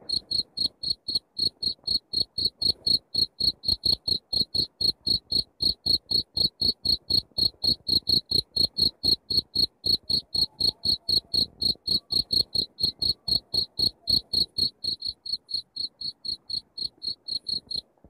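Black field cricket (two-spotted cricket, jangkrik jaliteng) singing its calling song: a steady, even train of short high-pitched chirps, about four a second.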